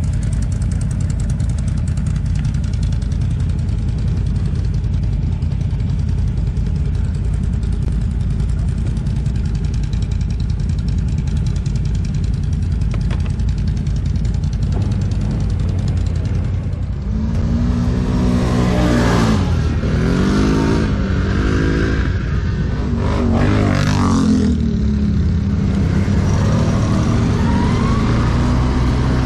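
ATV engine running with a steady low rumble under a hiss, then, a little past halfway, revving up and down several times, its pitch rising and falling.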